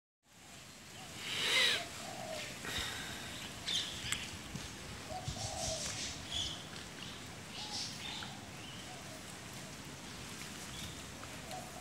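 Birds calling outdoors: scattered short chirps and calls over a steady background hiss, the loudest call about a second and a half in.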